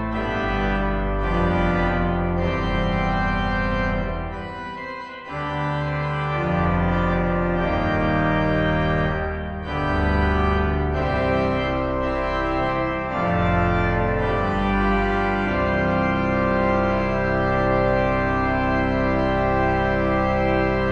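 Pipe organ playing a chordal passage on the trumpet reed stop coupled with the full principal chorus, a very full sound. The chords change every second or two, and the last chord is held for several seconds.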